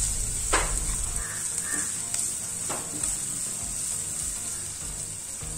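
Onion, garlic, chilli and curry leaves frying in coconut oil in a non-stick pan, sizzling steadily, with a spatula stirring and scraping through the mixture a couple of times in the first few seconds.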